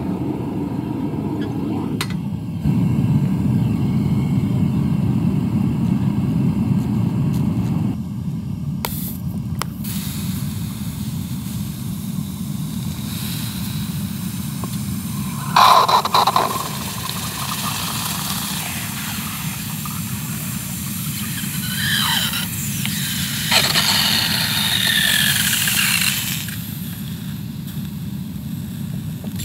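Metal-melting furnace burner running with a steady low rush, relit to remelt aluminum that had cooled solid in the crucible. Brief high squeals cut in about halfway through and again near the end.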